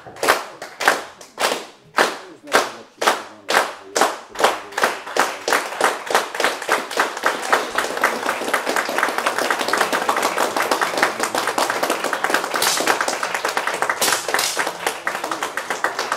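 Audience clapping in unison in a steady rhythm, about two claps a second, that speeds up and from about six seconds on runs together into continuous applause.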